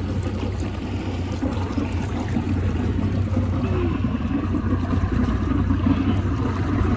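A boat's motor running steadily while the boat is under way: a constant low hum with an even wash of water noise over it.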